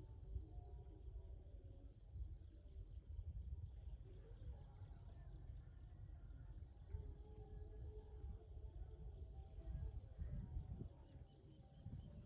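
Insect chirping in a steady rhythm: each chirp is a quick train of about six high pulses, repeating every two to two and a half seconds. A low, steady rumbling noise runs underneath.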